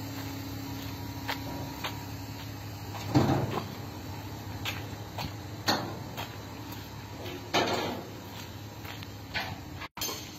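A steady low hum that fades out after about two seconds, then a series of irregular knocks and thumps, the loudest a low thud about three seconds in.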